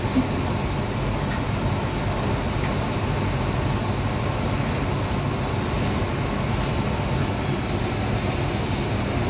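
Steady low roar of commercial kitchen equipment running, even and unchanging, with a small click near the start.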